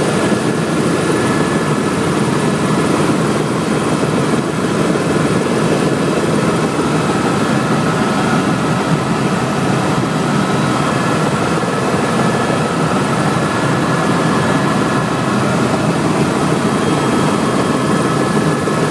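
Helicopter turbine engine and rotor heard from inside the cabin in flight: a steady, loud drone with a few high, steady whining tones over it.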